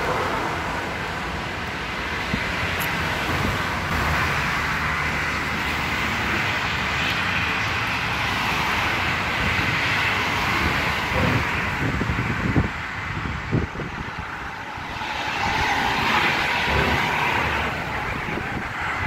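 Steady road traffic noise from a multi-lane road below: the continuous rush of passing cars, dipping briefly a little past the middle.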